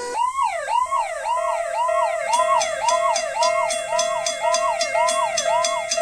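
Ambulance siren in a fast yelp, its pitch sweeping up and down about twice a second. A steady tone and a quick, regular ringing from the level-crossing signal bell join in after one to two seconds.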